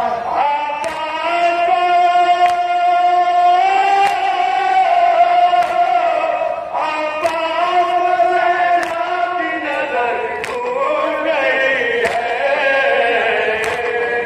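Male voices chanting a nauha, a Shia lament, in long held notes, with sharp slaps of chest-beating (matam) landing about every one and a half seconds.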